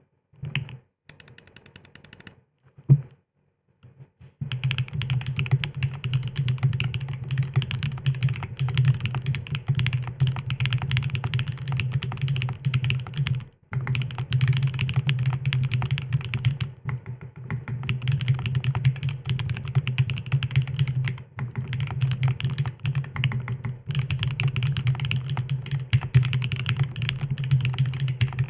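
Aeris65 mechanical keyboard with stock SWK Mocha switches and lubed Cherry clip-in stabilizers being typed on fast and continuously, starting about four seconds in after a few scattered key sounds, with a few brief pauses.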